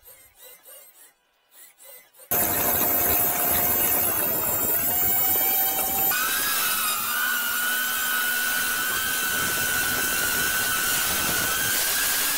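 Electric motors and fans of an RC VTOL model plane running at high speed: a steady high whine that starts abruptly about two seconds in and shifts to a new steady pitch about halfway through.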